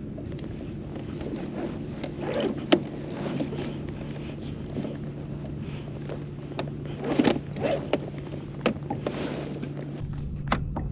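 Anchor rope and clip being handled on a plastic fishing kayak: scattered sharp clicks and knocks against the hull, the loudest about three seconds in and about seven seconds in, over steady background noise.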